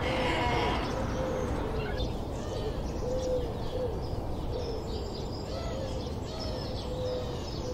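Doves cooing: a string of short, soft coos repeating irregularly, with small birds chirping faintly higher up.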